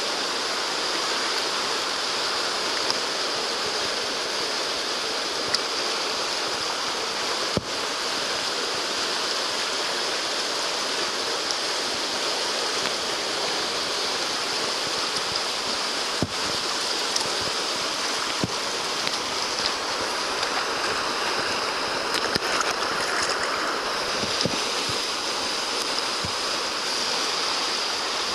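Fast whitewater rushing steadily past and around a kayak, with a few short sharp knocks now and then.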